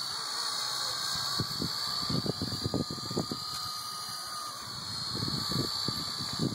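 Blade SR120 micro RC helicopter's electric motor and rotor giving a steady high whine that wavers slightly in pitch as it flies. Wind gusts buffet the microphone with an uneven low rumble.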